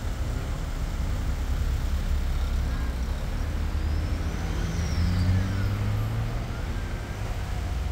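Road vehicles running close by in street traffic, with a low engine hum that rises and swells about four to five seconds in. Faint high whining glides sit above it.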